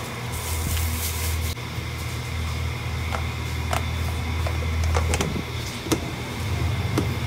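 Light clicks and taps of a plastic food container's lid being handled and fitted on, several over the second half, over a steady low hum.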